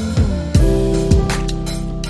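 Background music: sustained instrumental chords over a drum beat.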